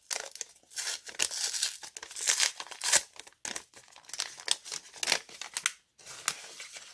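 Kraft paper envelope being opened by hand: its sticker seal tearing loose and the paper crinkling and rustling in quick, irregular bursts.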